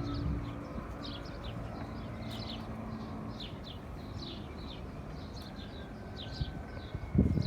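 Small birds chirping, short falling chirps repeated two or three times a second, over a low steady rumble. A few sharp low thumps come near the end.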